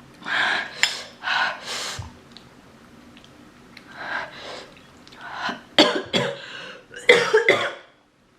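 A woman coughing hard in two fits of several coughs each, her throat irritated by very spicy noodles.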